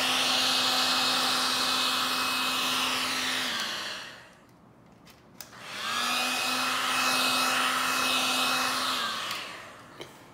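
Wagner heat gun (power stripper) running with a steady fan whir and motor hum. About three and a half seconds in it winds down, and there is a click in the short lull. It then starts up again and runs steadily until it winds down near the end.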